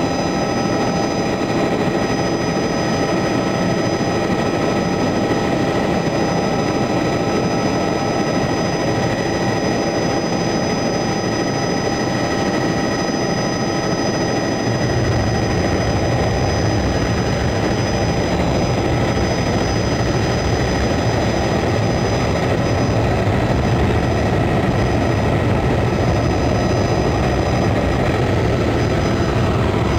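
Helicopter engine and rotor running steadily, heard on board, with a constant whine of several high tones over a loud rushing noise. About halfway through, the low rumble grows stronger and stays up.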